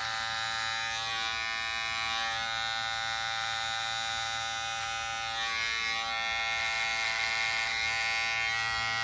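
Wahl electric hair clippers buzzing steadily as they cut through a thick moustache, a little louder from about halfway through.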